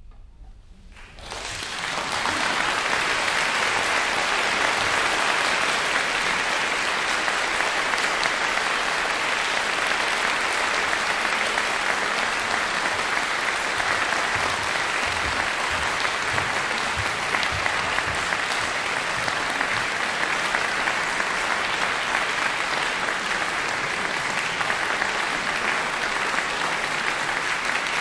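Concert-hall audience applauding, breaking out about a second in and continuing steadily.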